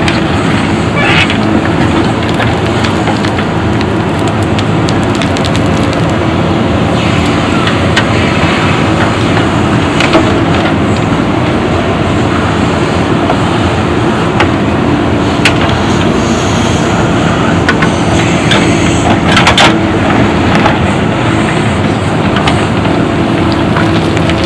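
JCB backhoe loader's diesel engine running steadily under load, with a few sharp knocks and rattles from the gravel work.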